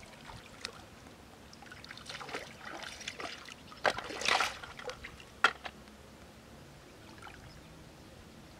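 Shallow river water splashing and trickling around wading hands, with a sharp click and a splash about four seconds in as river snails are dropped into a floating metal basin, and another click a second or so later.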